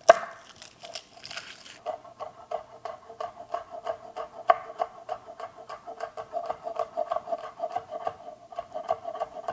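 Chef's knife mincing garlic cloves on a wooden cutting board: one hard knock at the start, then from about two seconds in a fast, steady run of chopping knocks, several a second.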